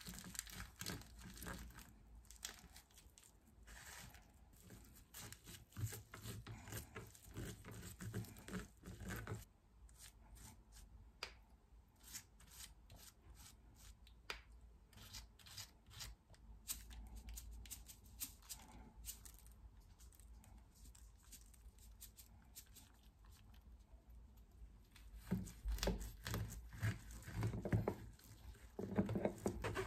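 Dry laver (gim) sheets crinkling and crackling as hands roll small gimbap on a plastic cutting board, for about the first third. Then scattered light clicks, and near the end a kitchen knife cuts through the rolls with knocks on the board.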